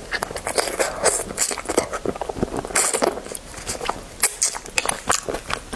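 Close-miked eating sounds of a spicy braised rabbit leg: biting, sucking and chewing meat off the bone. Many quick mouth clicks and smacks, with a longer sucking noise about three seconds in.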